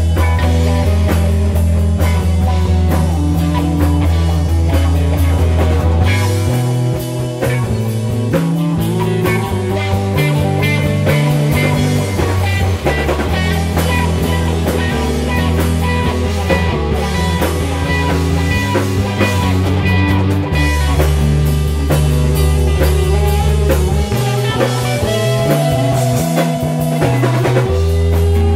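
Instrumental psychedelic rock played by a band: long, low bass notes that change every few seconds under electric guitar and a drum kit, with guitar notes bending upward near the end.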